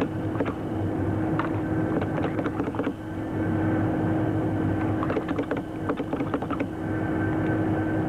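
A steady background din with a low hum under it and scattered clicks and clatter.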